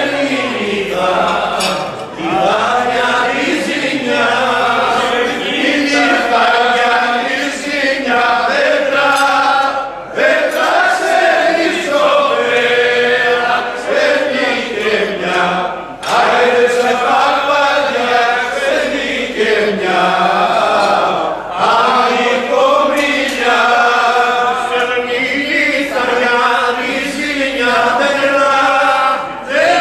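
A group of men singing a Greek folk song together in long drawn-out phrases, with short breaks between them.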